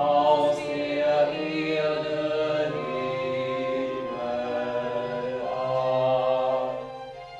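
Music: several voices singing long held notes together, fading down near the end.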